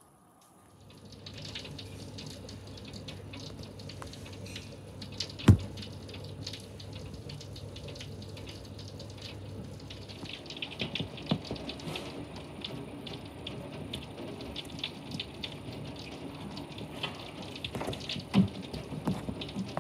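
Heavy rain falling steadily, with close drips and splashes that grow denser in the second half. One sharp knock about five seconds in.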